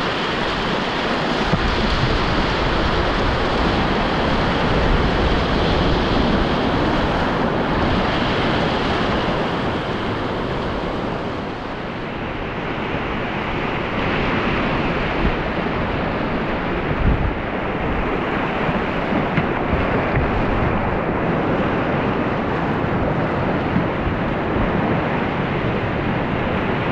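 Whitewater rapids rushing steadily around an open canoe, heard on an action camera with some wind buffeting the microphone. There are a few brief knocks about two-thirds of the way through.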